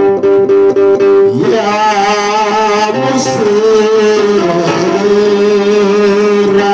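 Begena, the Ethiopian lyre, plucked note by note; about a second and a half in, a man's voice comes in singing a long, wavering line of an Ethiopian Orthodox hymn over the strings.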